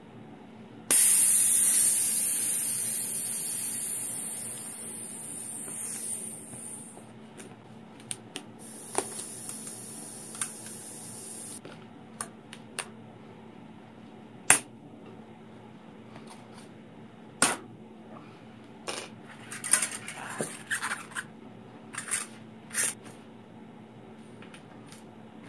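Air hissing out of a bicycle tyre's valve as the inner tube is deflated, sudden and loud at first and fading over about five seconds, then a second, quieter hiss. After that come scattered clicks and short clatters of the wheel and its parts being handled.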